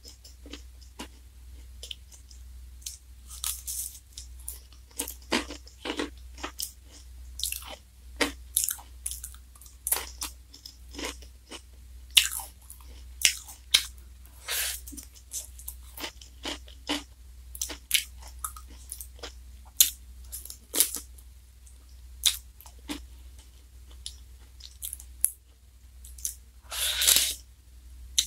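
Close-up mouth sounds of biting and chewing a black wafer ice cream cone with soft ice cream: crisp, irregular crunches and crackles. One longer, louder crunch comes near the end, over a steady low hum.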